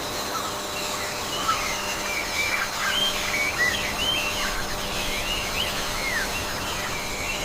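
Several birds chirping and whistling: many short, overlapping rising and falling calls over a steady background hiss of outdoor ambience.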